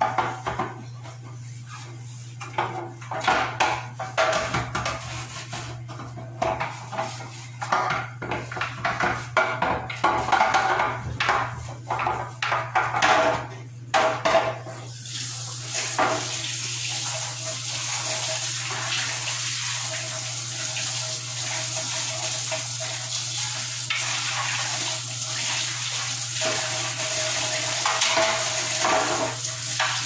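A clear plastic refrigerator part is scrubbed with a sponge and knocks and clatters against a laundry sink. About halfway through a tap starts running steadily as the part is rinsed under the water.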